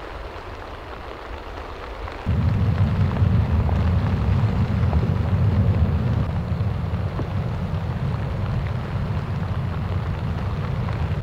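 Steady rain hiss. About two seconds in, a loud low rumble starts suddenly, runs on over the rain and then stops.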